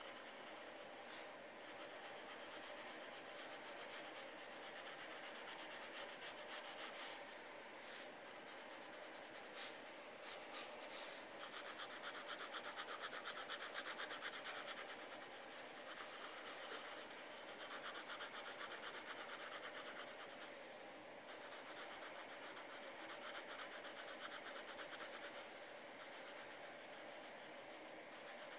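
Pencil shading on paper: fast back-and-forth scratching strokes in long runs, broken by a few short pauses.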